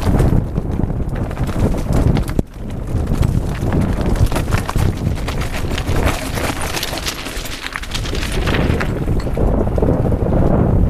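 Bike ridden fast down a rocky trail: wind buffeting the microphone, with tyres crunching over loose stones and the bike rattling on the bumps. There is a brief dip in level about two and a half seconds in.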